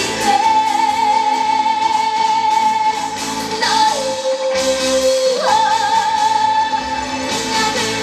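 Young female trot singer's voice over amplified backing music, holding long notes: a high note for about three seconds, a drop to a lower held note about four seconds in, then a slide back up to the high note for the rest.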